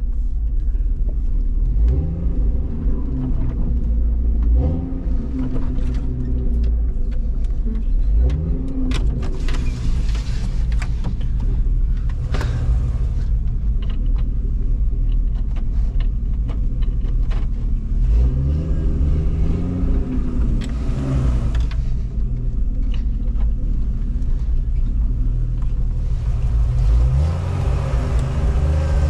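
1997 Jeep Wrangler's engine heard from inside the cab, driving off-road, its revs rising and falling several times as the throttle is worked. Patches of rougher scraping noise come in around the middle and again later.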